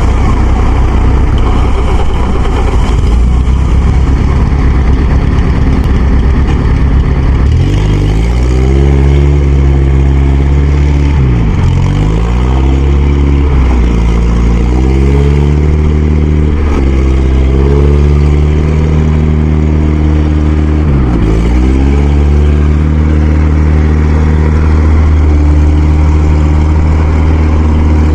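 Farm diesel engine running hard at high load. From about a third of the way in, its pitch sags sharply and climbs back about four times: the engine is bogging under the strain of dragging a rice harvester stuck in deep mud.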